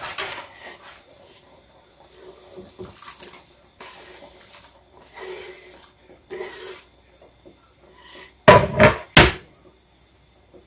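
Chopped onion and carrot being scraped off a wooden cutting board into a pot of soup, with soft scraping and rustling. Near the end come three loud wooden knocks as the board is knocked and set down.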